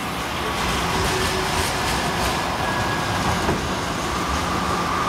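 TriMet MAX light-rail train running past along the street: a steady, even rumble of wheels and motors, with a faint thin tone over it in the second half.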